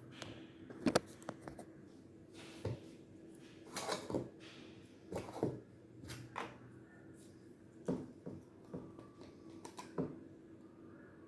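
Small objects being handled: irregular clicks, knocks and short rustles, about a dozen in all, over a steady low hum.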